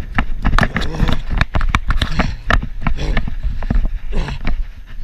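A person running fast on grass with the camera in hand: quick, irregular footfall thuds and handling knocks, several a second, with short bits of voice, breath or cries, between them.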